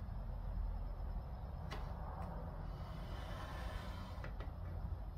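A pen scratching along plywood as it traces around the frame of an automatic chicken coop door, with a few faint light clicks, over a steady low hum.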